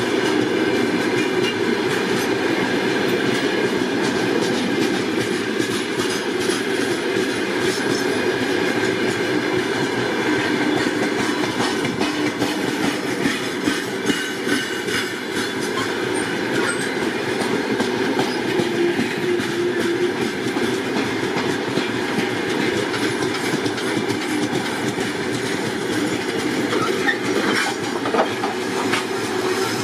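Train rolling past on steel rails: a steady rumble with a continuous clatter of wheels over the rail joints.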